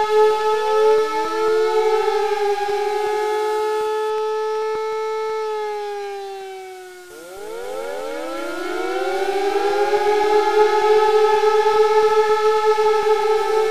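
Sirens wailing, several overlapping tones holding and gliding up and down. The sound sags and fades about seven seconds in, then winds back up.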